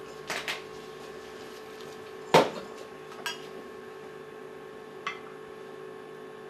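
Clinks and knocks of metal and glass barware being handled and set down on a bar counter: two light clicks near the start, one loud knock with a short ring about two and a half seconds in, and two fainter clicks later, over a steady faint hum.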